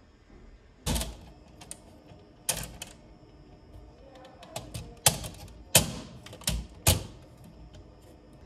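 A series of sharp clicks or knocks: about seven loud ones, irregularly spaced half a second to a second and a half apart, with fainter ticks in between.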